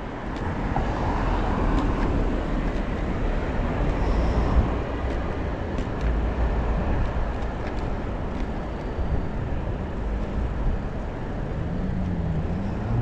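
City street traffic heard from a moving bicycle, with a steady low rumble of passing vehicles and wind on the microphone. Near the end a low tone wavers up and down.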